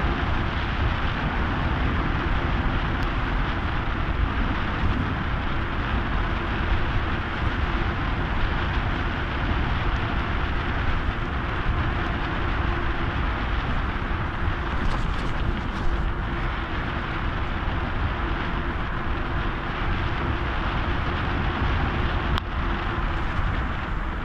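Steady wind rush on the microphone mixed with tyre and road noise from a vehicle moving downhill on wet asphalt.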